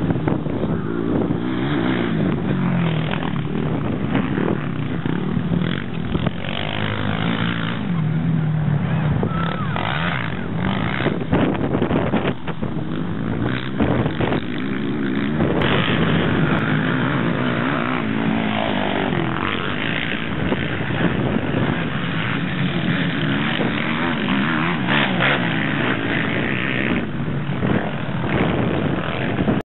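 Racing quad (ATV) engines revving on a dirt cross-country track, their pitch rising and falling again and again as the riders open and close the throttle.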